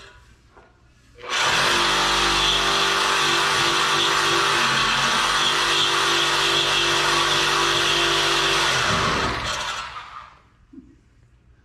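Corded reciprocating saw (Sawzall) cutting through a steel exhaust pipe. It starts about a second in, runs steadily for about eight seconds with a constant motor whine under harsh rasping, and winds down and stops near the end.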